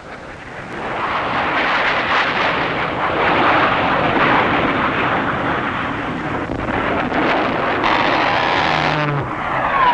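F-104 Starfighter jet engine noise as the fighter flies low over the range: a steady rushing that builds about a second in and holds. Near the end a whine falls in pitch as the jet passes.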